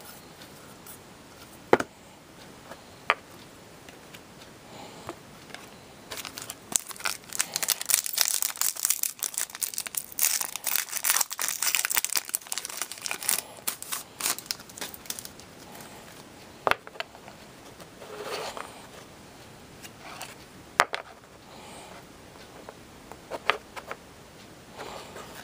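Foil trading-card pack being torn open and crinkled for several seconds in the middle. Before and after there are single sharp clicks of stiff cardboard hockey cards being flipped through.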